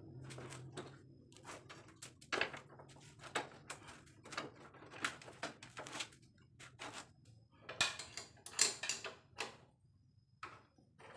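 Irregular metallic clicks, knocks and short scrapes of parts and tools being handled while refitting the rear wheel of a Honda Wave motorcycle at the axle and brake. The sounds thin out near the end.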